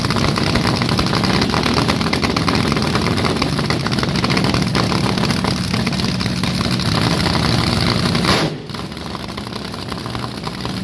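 Drag-racing car's engine running loud and fast-firing in a stationary warm-up. About eight and a half seconds in there is a sharp burst, then it settles to a lower, quieter idle.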